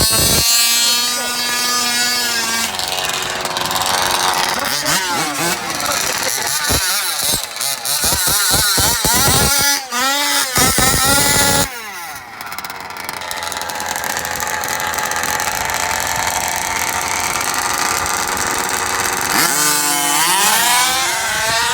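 Small two-stroke engines of gas-powered large-scale RC cars revving hard, with a high, buzzing pitch that climbs and falls repeatedly. The sound changes abruptly about halfway through, then settles into a steady high drone, with more rising revs near the end.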